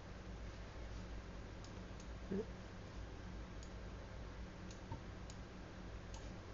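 Scattered computer mouse clicks, about half a dozen spread over several seconds, over a steady low hum.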